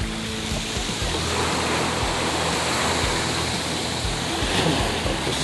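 Surf washing in over a pebble and gravel beach: a steady rush of waves.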